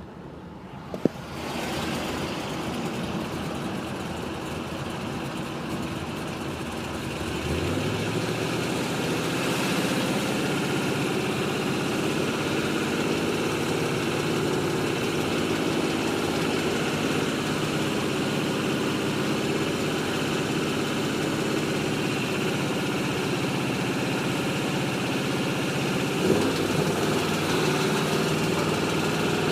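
Pontiac GTO's 6.0-litre LS2 V8 starting about a second in, then idling steadily with the ticking noise that the owner is asking about. The low note of the idle rises a little about seven seconds in.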